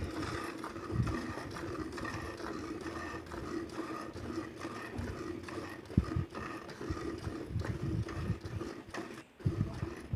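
A cow being milked: repeated squirts of milk hitting a pail in an uneven rhythm.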